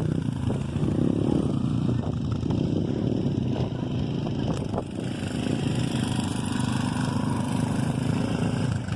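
Dirt bike engines running steadily at low speed, without sharp revving.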